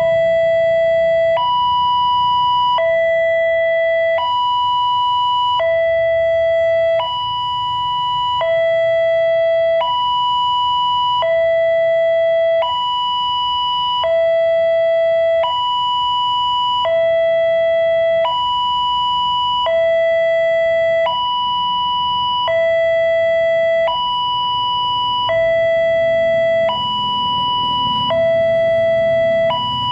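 Indonesian railway level-crossing warning alarm sounding from the crossing post's loudspeaker while the barrier is down. It is an electronic two-tone signal that alternates steadily between a low and a high note, each held about three-quarters of a second. A low rumble swells near the end.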